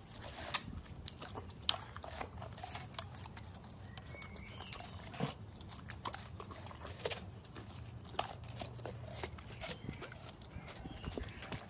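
A chocolate Labrador retriever chewing a wedge of watermelon, with irregular crunches and smacks as it bites into the flesh and rind.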